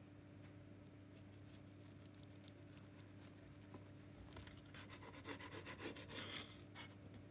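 Faint crunching crackle of a kitchen knife cutting through a crisp toasted bread cup, thickest past the middle, over a low steady hum.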